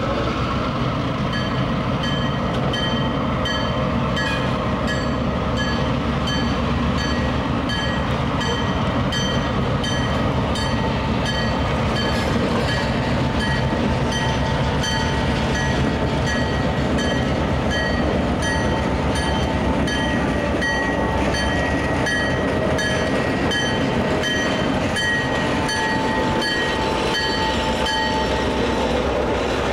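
New York & Atlantic diesel locomotives, a switcher and a GP38, running slowly past with a steady engine drone, while a bell rings steadily about twice a second.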